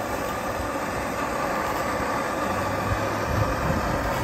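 Steady rushing noise of a heating tool being played on the stuck oil dipstick tube of a Subaru EJ engine, heating the tube until it smokes so it can be pulled free.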